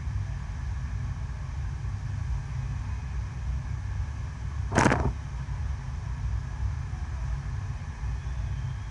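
Steady low rumble of water rushing over an indoor artificial sheet wave, driven by its pumps. About five seconds in, one short, sharp burst of noise stands out above it.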